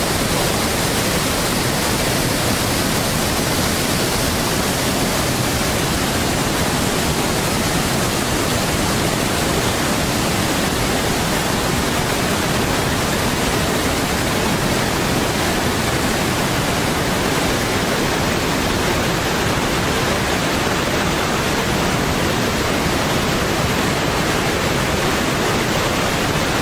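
A steady, loud rushing noise with no change in level or pitch throughout.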